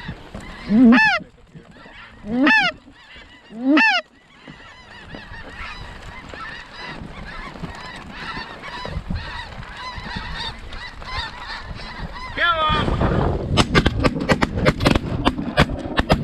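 Snow geese honking: three loud rising calls close by, then a flock calling over one another. Near the end a rapid run of shotgun blasts from several guns firing together.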